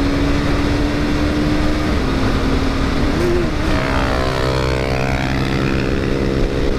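Honda CB300F motorcycle engine running hard at high revs during a roll-on race, under heavy wind rush on the helmet-camera microphone. About four seconds in, a second motorcycle engine's note joins and sweeps in pitch.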